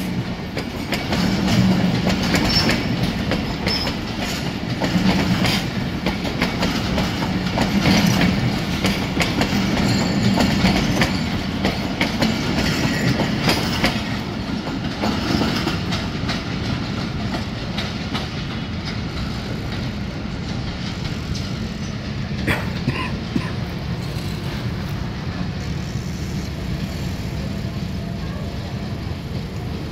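Passenger coaches of the Millat Express rolling past close by, their wheels clicking rhythmically over rail joints above a steady rumble. The clatter is loudest in the first half and eases into a quieter rumble as the rear of the train draws away, with one sharp clank about two-thirds through.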